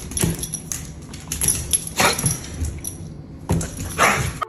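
A dog making short vocal sounds, once about two seconds in and again near the end, amid clicking and jingling.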